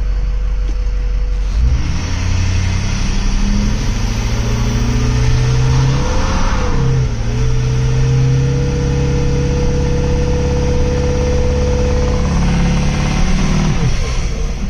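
Ford 6.0 Powerstroke V8 turbo-diesel heard from inside the cab, idling and then held at about 1,700 rpm against the brakes in drive. This power-braking load test builds about 17 psi of boost, a sign that compression, turbo and injectors are good. The engine loads up about two seconds in, holds steady with a brief dip partway, and drops back to idle near the end.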